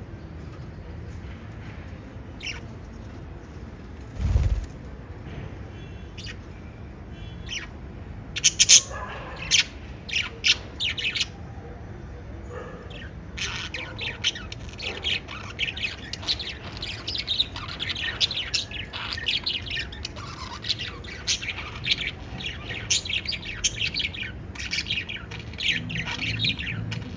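Pet lovebirds chirping and squawking: a few sharp, loud calls at first, then from about halfway a rapid, continuous chatter of high chirps. A short low thump about four seconds in.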